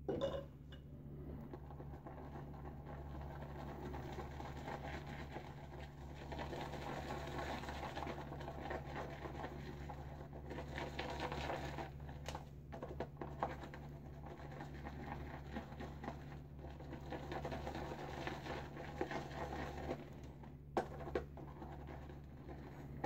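Boar-bristle shaving brush whisking and swirling Williams mug soap lather in a mug, a soft continuous wet scratching and patter as dense lather is built up, with a couple of light knocks of the brush against the mug.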